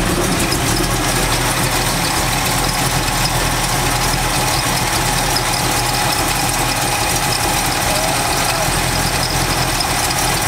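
1984 Chevy C10 engine idling under the hood, with a steady high squeak from the accessory belt system running over it. The owner puts the noise down to the belt system, which has a belt one size too long on the alternator.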